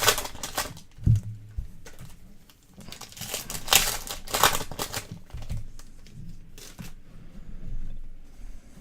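Plastic wrapping on trading card packaging crinkling and tearing as it is handled and opened, in irregular bursts with the loudest stretch about three to five seconds in.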